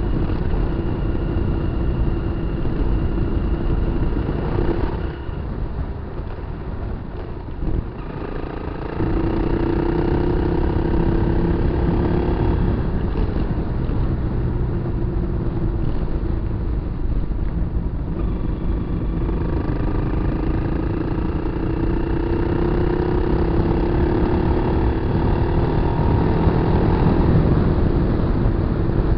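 Kawasaki KLR250 single-cylinder motorcycle engine running under way, easing off about five seconds in and picking up again around nine seconds, then climbing steadily in pitch as it accelerates in the second half, over a constant low rumble.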